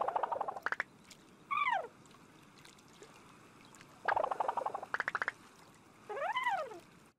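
Playful cartoon sound effects: a fast burbling trill at the start, a short sliding note that falls about a second and a half in, a longer burbling trill about four seconds in, and a sliding note that rises then falls near the end.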